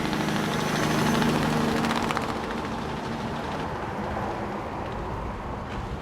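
A heavy farm machine's engine running steadily, its hum strongest for the first couple of seconds and then weaker.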